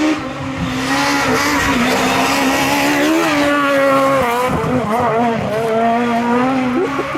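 Rally car engine at high revs, its pitch rising and dipping with throttle and gear changes, with some tyre noise.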